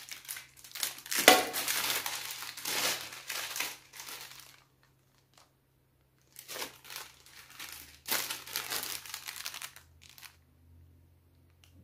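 Thin clear plastic bags crinkling as they are handled, in several bouts with short pauses between. A sharp knock about a second in is the loudest sound.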